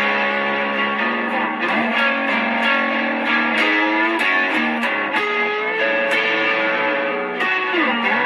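Guitar music: held chords strummed and let ring, with sliding pitch changes between some of them, and no singing.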